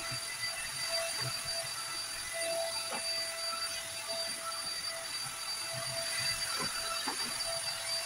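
Corded stick vacuum cleaner running, its motor giving a steady high whine over a rushing hiss, with a few soft knocks as the head is moved about the floor.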